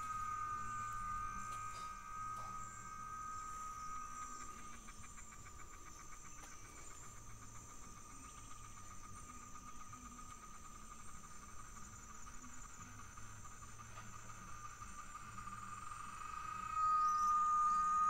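Cicadas singing: overlapping steady high drones, with a fast pulsing chirr joining in for a few seconds, the chorus getting sharply louder near the end.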